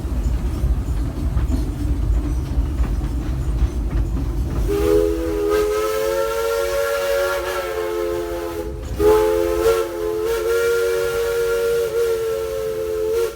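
Steam locomotive's chime whistle blowing a chord of several tones in two long blasts with a short break between them, starting about a third of the way in, over the low rumble of the train rolling along.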